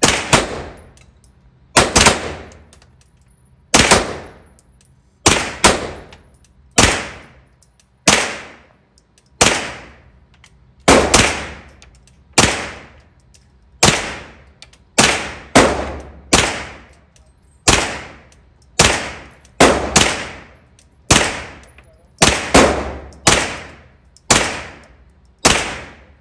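CZ Scorpion EVO 3 S1 9mm semi-automatic carbine firing about twenty single shots, roughly one every second or so with a few quick pairs, each shot echoing off the walls of an indoor range.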